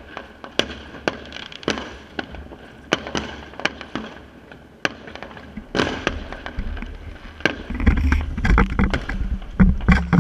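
Fireworks going off across the neighbourhood: irregular sharp bangs and crackles, several a second, from firecrackers and bursting shells. About two-thirds of the way in, a loud low rumbling and scraping joins them as the microphone is handled.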